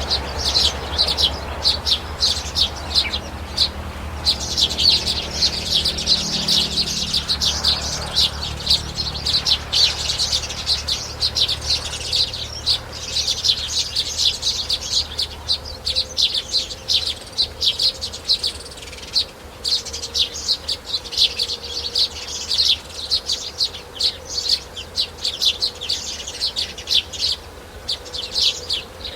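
Many small birds chirping rapidly and continuously, a dense chatter of short high chirps.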